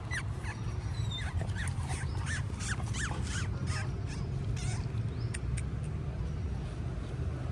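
A dog whimpering: a rapid series of short, high-pitched whines, thinning out after the first few seconds, over a steady low background rumble.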